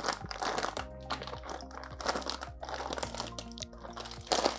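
Clear plastic fish-shipping bag crinkling in short bursts as it is handled, over background music with held notes.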